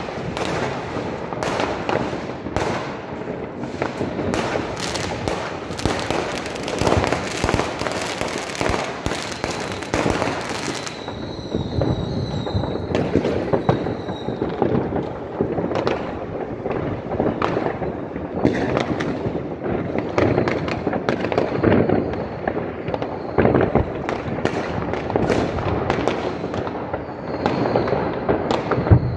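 Fireworks and firecrackers going off in many places at once: a dense run of bangs and crackling, heaviest in the first third. A high whistle comes in for a few seconds around the middle and again near the end.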